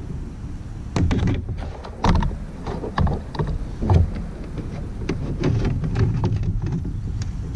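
Hollow knocks and clatter of gear against a plastic kayak as a fish-measuring board is pulled out and handled: four loud knocks about a second apart, then a run of lighter taps, over a steady low rumble.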